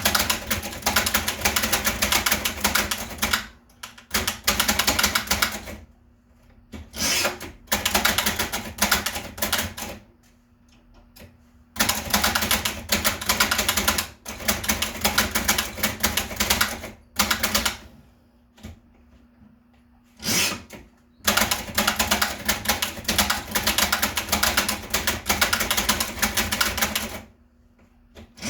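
1920s Bing No.2 portable typewriter being typed on: fast runs of key strikes, broken by several short pauses of a second or two.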